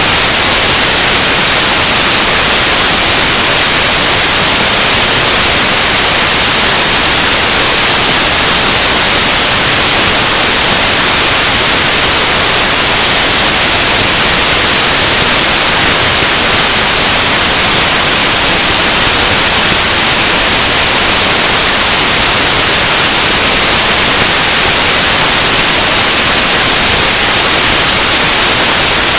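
Harsh noise music: a loud, unchanging wall of static hiss, heaviest in the treble, with no rhythm, pitch or breaks.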